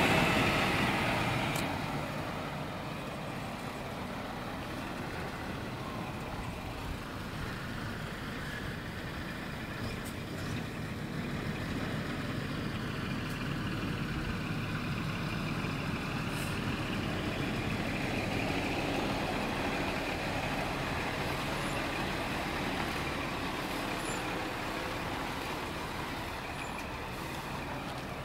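Scania R420 truck's 12-litre straight-six diesel engine running steadily. A louder hiss at the start dies down over the first two seconds.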